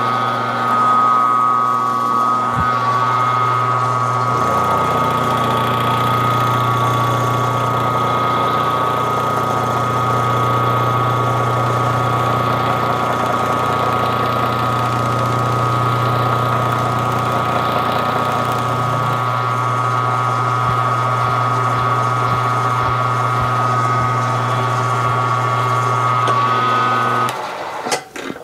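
Benchtop mill-drill spindle motor running with a steady whine over a low hum, the bit being fed into a metal workpiece; a deeper hum joins for about fifteen seconds in the middle. The motor switches off about a second before the end.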